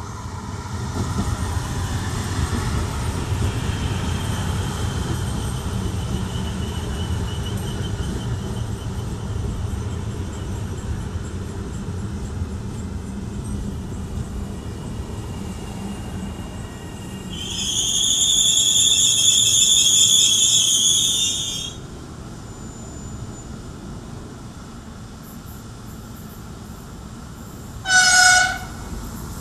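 Double-deck ETR 521 "Rock" electric regional train pulling into the platform, its low rumble of motors and wheels fading as it comes to a stop. About seventeen seconds in, a shrill high whistle-like tone sounds for about four seconds. Near the end, an approaching high-speed train gives one short horn toot.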